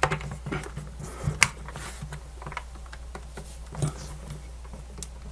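Scattered small clicks and scrapes of a screwdriver and fingers working at the screws of a plastic portable radio's case, with one sharper click about a second and a half in.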